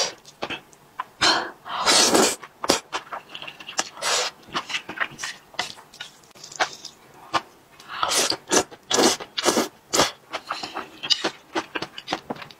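Close-miked eating of thick, saucy stir-fried noodles: wet chewing with many sharp lip-smacking clicks, and longer noisy slurps about a second and a half in and again about eight seconds in.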